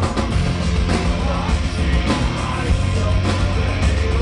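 Heavy metal band playing live and loud: distorted electric guitars, bass and drum kit, with the singer's yelled vocals over them.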